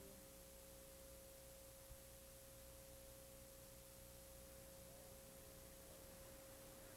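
Near silence: a faint, steady single pure tone over a light hiss.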